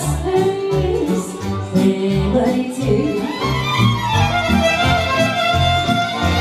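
Live wedding band playing: a violin carries a gliding melody over accordion and a steady bass beat of about two notes a second.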